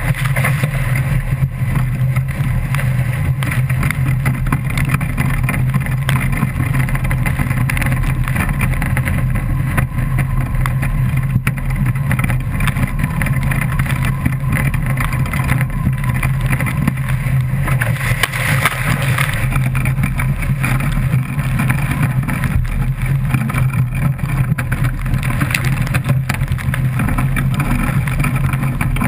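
Steady low rumble and hiss of wind buffeting a GoPro's housing and water rushing past the hull of an A-Class foiling catamaran sailing fast.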